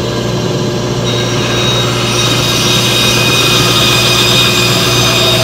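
Electric band saw running with a steady motor hum while a round wooden dowel is fed into the blade; about two seconds in the cutting noise grows louder and rougher as the blade bites into the wood.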